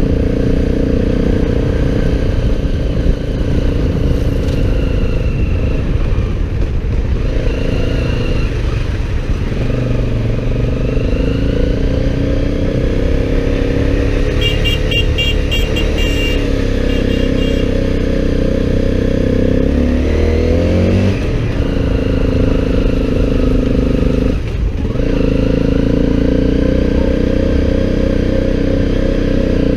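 Motorcycle engine running under way, its note rising and falling with changes of speed, with a quick drop and climb in pitch about twenty seconds in.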